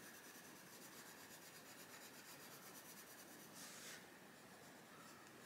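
Faint scratching of a Castle Arts Gold coloured pencil on colouring book paper, in quick back-and-forth shading strokes, with a slightly louder stroke about four seconds in.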